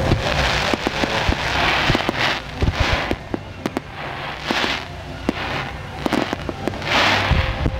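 A starmine fireworks barrage: a rapid run of sharp bangs from shells bursting, over and over, with several surges of hissing crackle, each lasting about half a second to a second.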